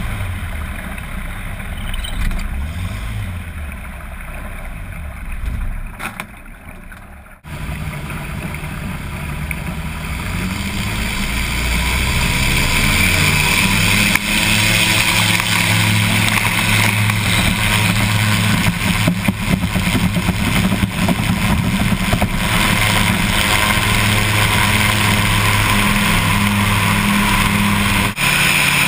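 Lockwood Aircam amphibian's twin engines on a float takeoff run: after a quieter stretch of water and low engine sound, a sudden break about seven seconds in gives way to the engines climbing to full power over a few seconds. They then run loud and steady, with spray hissing against the float.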